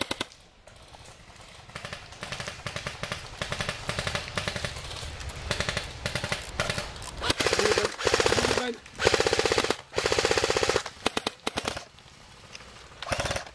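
Airsoft electric guns firing full-auto bursts of rapid clicks, several short bursts and two longer, louder ones about seven and nine seconds in.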